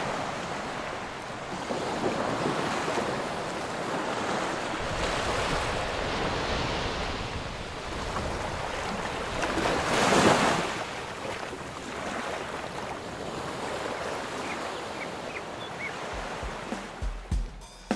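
Small waves breaking and washing up a sandy beach, the surf rising and falling, with wind on the microphone; one louder wash comes about ten seconds in.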